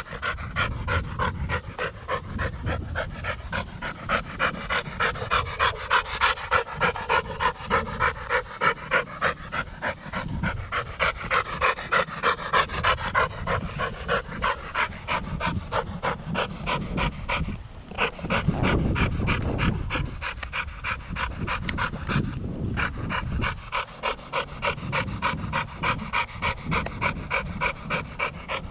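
Dog panting hard and fast after a chase, in a rapid, even rhythm of breaths.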